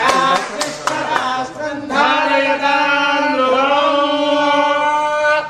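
Priests chanting Vedic Sanskrit mantras, with a long drawn-out note held through the second half.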